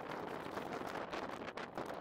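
Steady wind noise on the microphone, with gusts rushing past.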